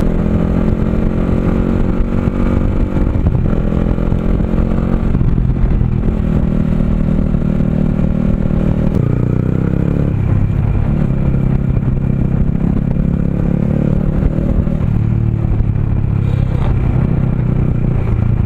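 Sport motorcycle's engine running while being ridden at road speed, its pitch shifting up and down several times with the throttle.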